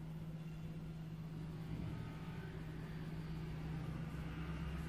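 A steady low mechanical hum with a rumble beneath it, unchanging and without distinct events.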